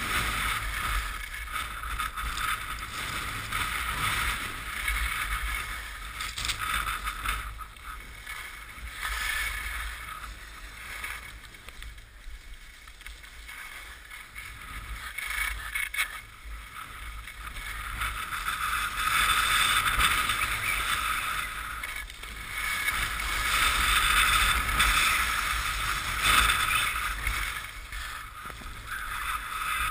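Rushing hiss of sliding down a groomed ski slope: the snow scraping under the rider and the air rushing past a helmet-mounted action camera. The hiss swells and eases over several seconds as the rider's speed and turns change.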